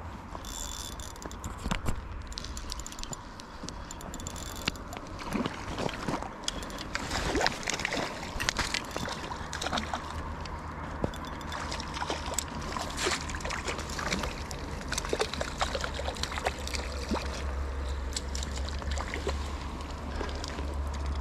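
Hooked trout splashing and thrashing at the lake surface while the spinning reel is cranked in, with scattered clicks and sloshes.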